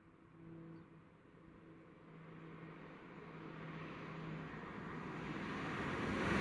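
LNER Azuma high-speed train approaching on the line, its running noise growing steadily louder as it nears, with a steady low hum over it in the first few seconds.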